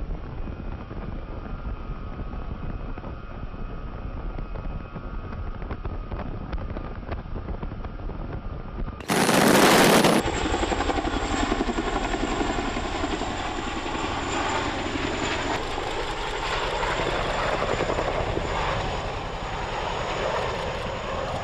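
Helicopter rotor and turbine noise during a water-bucket firefighting drop. It starts as a steady, muffled hum with a faint whine, then about nine seconds in there is a sudden loud rush of noise for about a second. After that comes a louder, fuller steady rotor and engine sound with a high whine.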